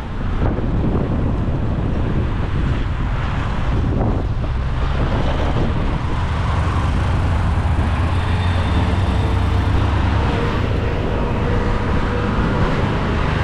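Wind rushing over the microphone on a moving motorbike, with the motorbike's engine and the surrounding road traffic running underneath.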